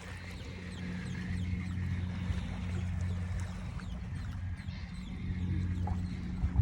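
A motor hums steadily at a low pitch, growing louder over the first couple of seconds, with many faint high chirps above it.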